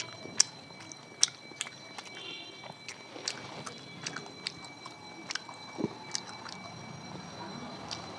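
Close-up eating sounds: irregular sharp clicks and smacks of chewing and mouth noises, several a second, with no talking.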